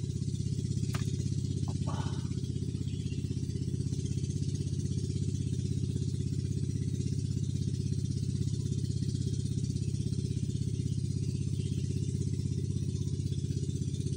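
A low, steady engine drone at constant speed, with a faint click about a second in.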